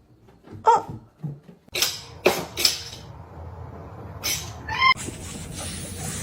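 A pet's short calls, a couple of brief cries, among a few sharp rustling or knocking noises.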